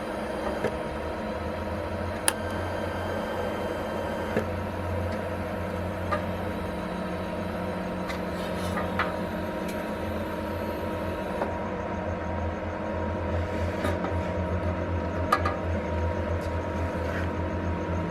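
Steady low buzz of a TIG welding arc on the thin sheet metal of an aircraft exhaust heat shield, with a few light clicks scattered through.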